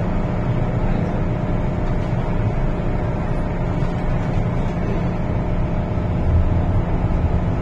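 Inside an MTR M-Train passenger car: a steady hum of the train's on-board equipment while it stands with its doors shut. About six seconds in, a deeper rumble builds as the train starts to pull away.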